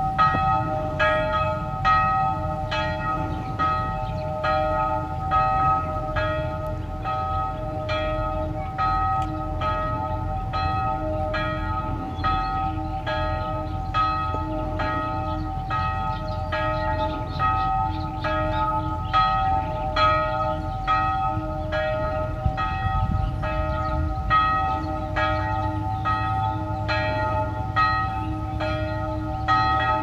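Church bells ringing, struck steadily about twice a second, with a low rumble beneath them.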